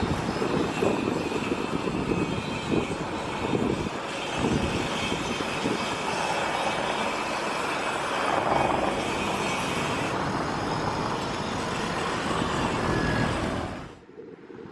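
Steady engine and traffic noise with uneven low rumble and buffeting, a few faint steady tones above it for much of the time; the sound drops away sharply for a moment near the end.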